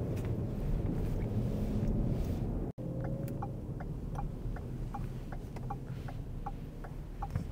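Car cabin rumble from driving slowly. After a brief dropout, the car's turn-signal indicator ticks evenly, a little over two ticks a second.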